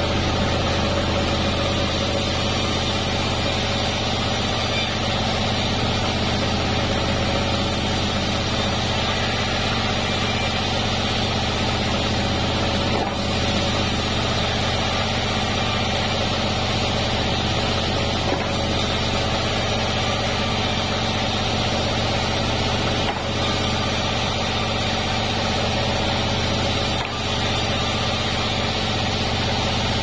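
Large vertical band sawmill running steadily while its blade rips a cananga (ylang-ylang) log into thin stick-sized beams, with a few brief dips in level.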